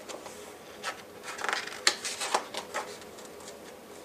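A picture book's paper page being turned by hand: a short spell of rustling and sliding paper with a few light taps, mostly between one and three seconds in.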